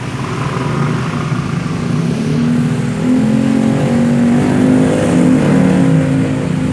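Vespa Corsa scooter's two-stroke engine running, its pitch wavering, getting louder and a little higher about three seconds in.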